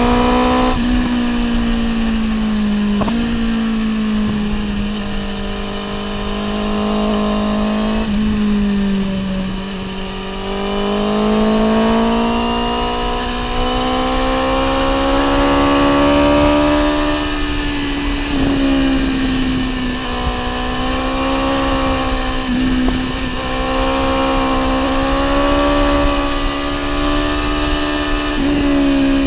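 BMW S1000R M inline-four engine through an Akrapovic exhaust, heard while riding. Its note rises and falls gently with the throttle, with a few brief dips at gear changes, over a steady rush of wind noise.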